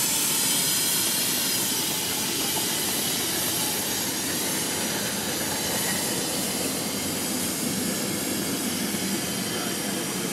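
Ridable-scale live steam locomotive venting steam in a steady hiss, slowly getting quieter.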